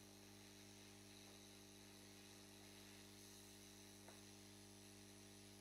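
Near silence: a faint steady hum with a little hiss.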